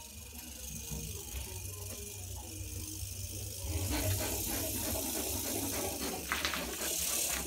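A porcupine rattling and shaking its raised quills: a dense clattering hiss that starts about halfway through and swells near the end.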